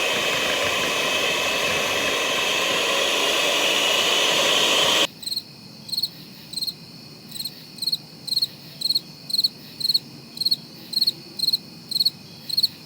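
An electric mixer runs with a loud, steady whir, whipping cream cheese filling, then cuts off abruptly about five seconds in. After that a cricket chirps in a steady rhythm, about twice a second.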